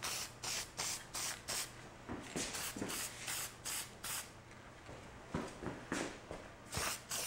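Aerosol can of spray paint spraying in many short hissing bursts, a fraction of a second apart.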